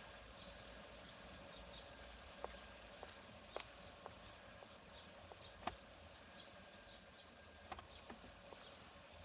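Faint outdoor ambience: a small bird chirping over and over in short high notes, with a few scattered soft taps, the clearest a little past the middle.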